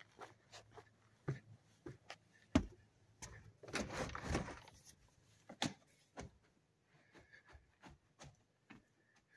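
Footsteps on a painted wooden porch deck, then clicks and knocks of a front door being unlatched and opened about three seconds in, with a short rustle as it swings, followed by quieter footsteps inside.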